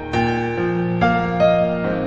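Slow, gentle piano music, with notes and chords struck one after another about every half second and left to ring.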